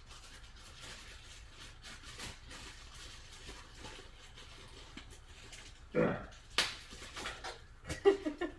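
Someone rummaging in a kitchen: faint handling at first, then a few sharp knocks and clatters from about six seconds in, with a short pitched vocal sound among a cluster of clatters near the end.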